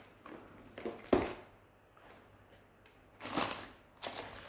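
Items and plastic packaging being handled: a sharp click about a second in, then two brief rustles near the end.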